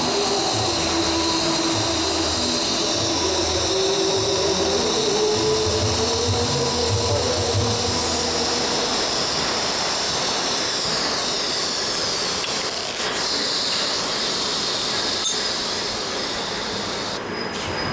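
TIG (gas tungsten arc) welding on an Inconel 625-clad steel pipe: a steady arc hiss with a low buzz over loud workshop noise. The buzz stops about halfway through.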